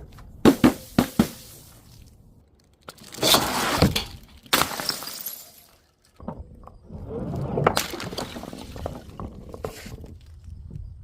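Glass bottles breaking: a few sharp knocks, then two loud bursts of shattering glass about three and four and a half seconds in, followed by a longer stretch of crunching and crackling.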